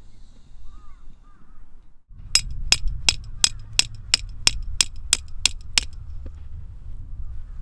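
A hammer driving a metal tent stake into the ground: a run of eleven sharp metallic blows at about three a second, starting about two seconds in and stopping just before six seconds.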